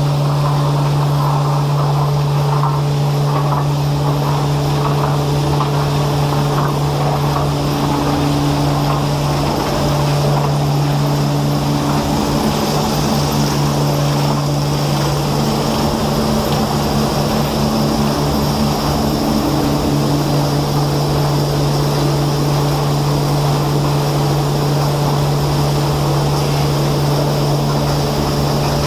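Machinery running with a steady, unbroken low hum and mechanical noise.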